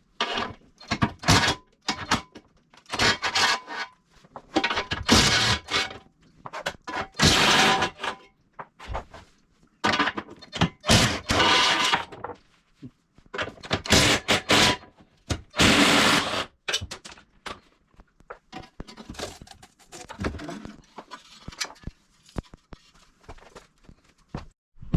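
Irregular bursts of clattering and scraping from work on the car, about a dozen over the stretch, each lasting up to a second or so.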